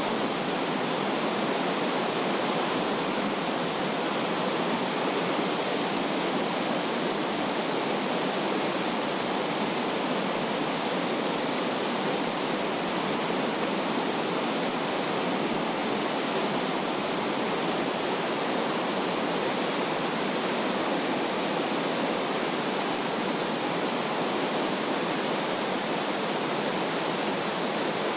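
Flooded river rushing and churning in big standing waves of white water: a steady, loud, unbroken rush of water noise.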